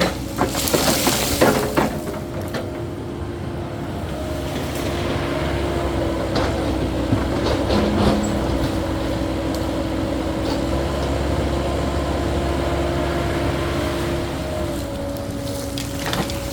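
Caterpillar 308E2 mini excavator working, its engine and hydraulics holding a steady whine with a low rumble that swells toward the end. A burst of clattering knocks comes about a second in.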